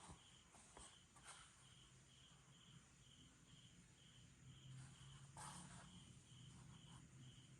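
Faint, steady cricket chirping, a high even pulse of about two chirps a second, over near-silent room tone. A few soft rustles or handling noises come in, the clearest about five and a half seconds in.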